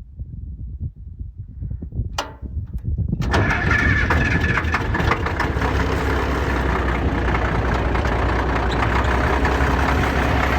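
Caterpillar D6C dozer's diesel engine being started with its glow plugs heated for a cool start: low, uneven turning over at first, then it catches about three seconds in and runs loudly and steadily.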